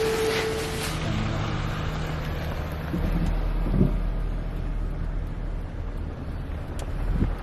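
An engine running steadily, a low even drone. A steadier, higher tone stops about a second in, and there are a couple of faint knocks.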